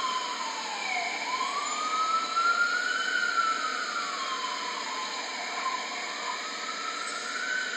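FDNY ambulance siren on a slow wail, its pitch falling and rising about every four seconds, over steady city traffic noise.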